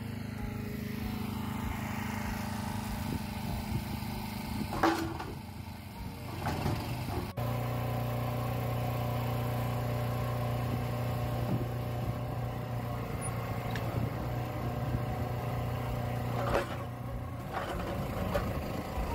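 Engine running steadily, the power for a hydraulic fence-post pounder, with a few separate knocks. The hum steps up louder about seven seconds in.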